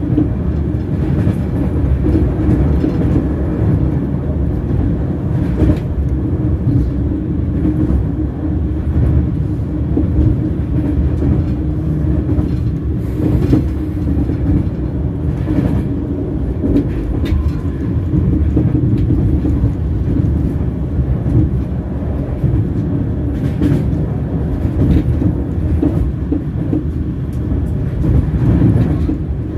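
Train wheels running on rails: a steady low rumble with a constant hum and occasional faint clicks.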